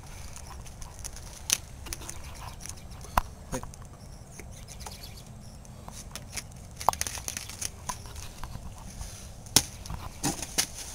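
Handling noise of a capped plastic water bottle held close: scattered sharp clicks and crinkles over a steady low rumble. The loudest clicks come about a second and a half in, about three seconds in and near the end.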